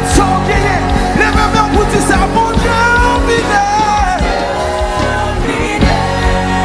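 Worship music playing: a sung melody over sustained chords and a steady drum beat.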